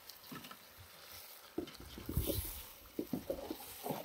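Metal spoon stirring and scraping chicken pieces in a metal cooking pot on a wood fire, with a light sizzle. The irregular knocking and scraping starts about a second and a half in.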